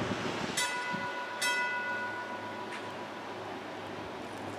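Trolley bell struck twice, under a second apart, each ring hanging on and fading over a couple of seconds, over a low steady background hum.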